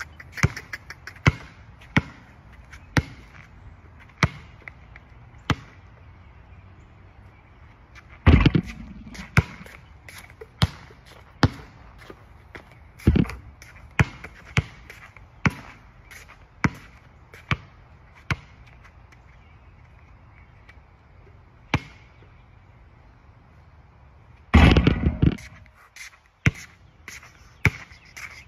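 A Spalding basketball dribbled on an outdoor asphalt court: sharp bounces about once a second, pausing for a few seconds near the end. Three louder, longer clatters of impact stand out, about eight seconds in, about thirteen seconds in and near the end.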